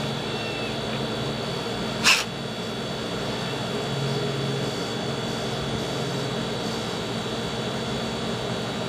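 A cat hissing once, briefly, about two seconds in, over a steady background hum.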